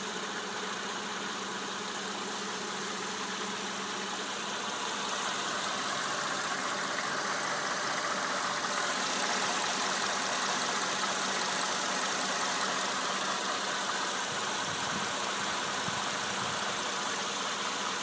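Mercedes-Benz M272 V6 petrol engine idling with a knock that is still present after about ten minutes of warm-up. The sound gets a little louder about five seconds in.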